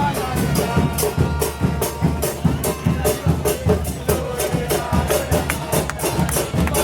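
Music driven by drums and percussion beating a fast, steady rhythm.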